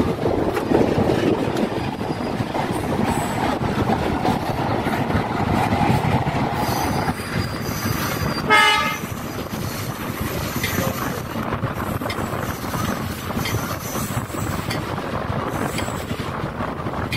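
Train running noise heard from on board, wheels rumbling steadily over the rails, with freight wagons passing close alongside for the first seven seconds or so. About halfway through comes a short, loud horn blast.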